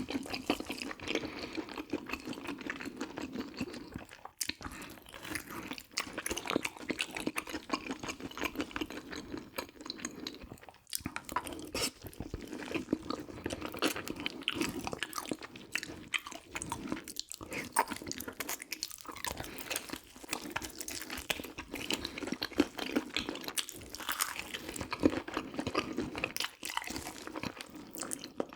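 A person chewing food close to the microphone, wet and sticky, with a dense run of small clicks and crunches and brief pauses between mouthfuls.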